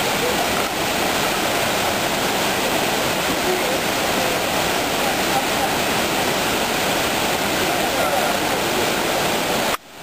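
Savica waterfall's twin falls pouring into their plunge pool: a steady, even rush of falling water that cuts out briefly just before the end.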